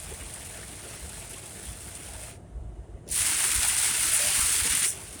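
Heavy rain on a moving vehicle with tyre and road noise, then a loud hiss of water spray for about two seconds starting about three seconds in, which ends suddenly.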